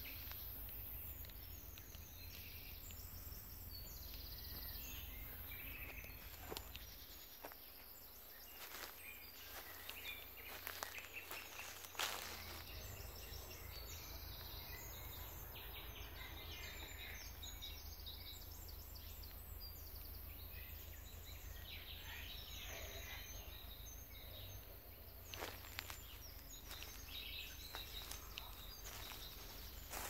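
Wild birds chirping and calling on and off, over a low steady rumble. A few sharp clicks, the loudest about twelve seconds in.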